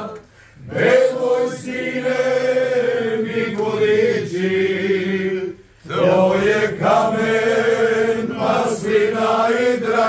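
A group of men singing a cappella in harmony, holding long sustained notes, with short breaks for breath about half a second in and again just before six seconds.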